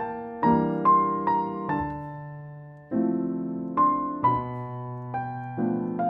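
Slow, gentle solo piano music as background: single notes and chords struck about every half second, each ringing and fading, with one chord left to ring out for about a second before the next one comes in.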